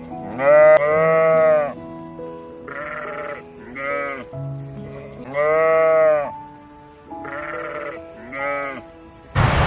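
Sheep bleating again and again, two long bleats and several short ones, over soft background music. A loud rushing noise sets in just before the end.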